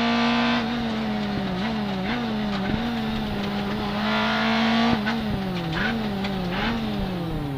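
Vauxhall Corsa kit car's Bill Falconer Engineering rally engine heard from inside the cabin under way. Its note holds steady, then dips and rises in a run of short swings, holds again, swings a few more times, and falls away near the end.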